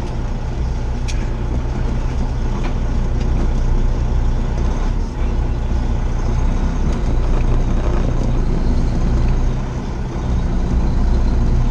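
Semi truck's diesel engine running steadily under way, heard from inside the cab, with a short click about a second in.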